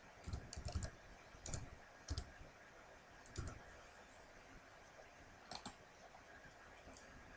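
Faint computer keyboard keystrokes, about six separate clicks spread unevenly over the first three and a half seconds as a six-digit code is typed. These are followed about five and a half seconds in by a quick pair of mouse clicks.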